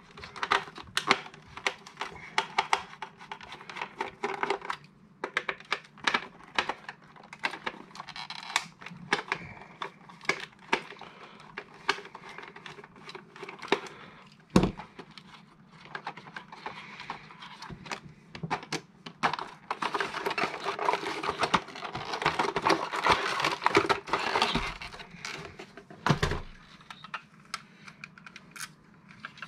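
Packaging being handled and unwrapped by hand: a long string of small clicks and taps with plastic and paper crinkling, thickest from about twenty to twenty-four seconds in.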